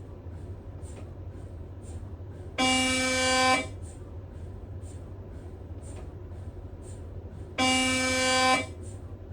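Siemens Magnetom Spectra 3T MRI scanner's gradient coils buzzing in two loud, low-pitched pulses about a second long and five seconds apart, as the scan sequence switches the gradients. Between the pulses there is a steady low hum with faint regular ticks.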